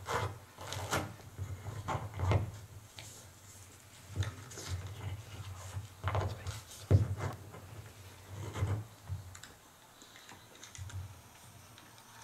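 Irregular knocks, taps and rustles of a microphone being handled and clipped on, with the sharpest knock about seven seconds in; it settles down near the end.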